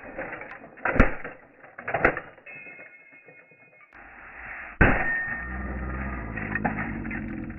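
A heavy hammer smashing a plastic computer keyboard on a wooden stump: two sharp cracking blows about a second apart, then another hard blow about five seconds in, followed by a steady low rumble and a few lighter knocks.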